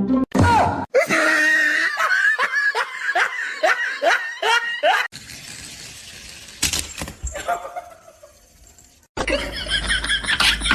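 Laughter: a run of short falling notes, about two or three a second, for around four seconds, then a sudden cut to quieter noise.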